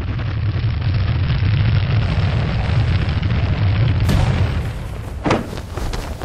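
A loud, deep rumble that swells over the first few seconds, with a sharp crack about five seconds in.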